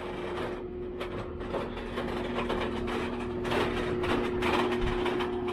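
Skid steer engine running steadily with a rough rattling and scraping noise that grows a little louder, as the machine is driven onto a trailer.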